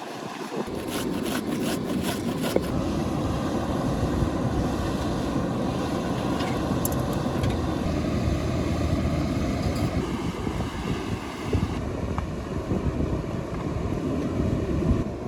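Steady rushing of a river flowing, with a few sharp clicks in the first couple of seconds.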